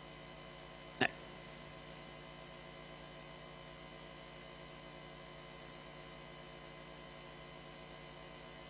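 Steady electrical mains hum from the sound system, with several even overtones, and one brief sharp pop about a second in.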